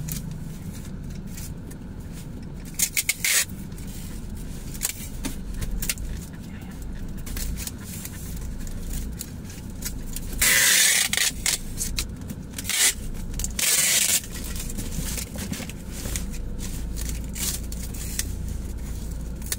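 Packing tape pulled off a handheld tape dispenser and pressed down onto a cardboard box: short, loud tearing screeches of tape unrolling about three seconds in, around eleven seconds and around fourteen seconds, with scraping and rubbing of cardboard in between. A steady low rumble runs underneath.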